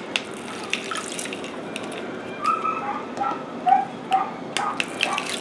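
Lime juice dripping from a hand-held plastic citrus squeezer into a pitcher of water: short plinking drops, most of them in the second half, with sharp clicks as the squeezer is pressed and handled.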